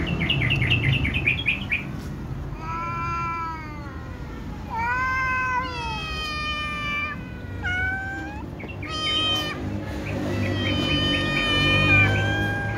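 Several kittens meowing loudly and repeatedly, begging for food before being fed. It opens with a quick run of short, stuttering mews, followed by long, drawn-out meows that rise and fall in pitch, some overlapping.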